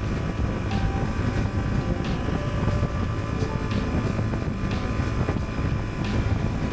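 Honda Transalp's 755 cc parallel-twin engine running at a steady cruise of about 75 km/h, with a steady low rumble and wind rushing over the microphone.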